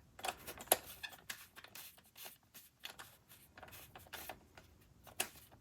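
3D-printed plastic puzzle-box parts being handled: scattered light clicks and taps with soft scraping as the stages are fitted onto the stem and the rings twisted, a sharper click a little under a second in and another near the end.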